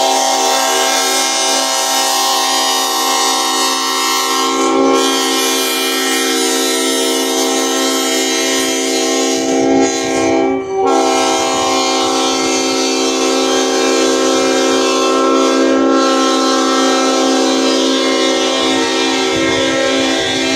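Mississippi Export diesel locomotive's air horn blowing a steady chord in long blasts, with short breaks about 5, 10 and 16 seconds in, as it sounds for street crossings.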